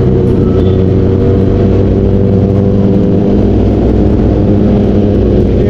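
Kawasaki Ninja ZX-10R's inline-four engine running steadily in third gear at moderate road speed, holding a nearly even pitch.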